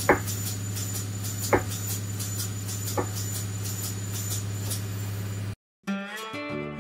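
Pneumatic power hammer running with a steady hum while its ram is dropped onto the bottom die by the foot treadle: three sharp strikes about a second and a half apart, each lighter than the last. Near the end the sound cuts out and acoustic guitar music begins.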